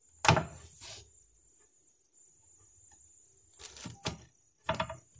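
Knocks and handling clatter as an axe is set down on a scale to be weighed: one sharp knock just after the start, a softer one a moment later, then a few short knocks and rattles near the end.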